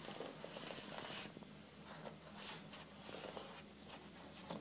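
Faint rustling and scraping of a printed textile face being handled and its edge worked into a display frame, with short scuffs and small clicks.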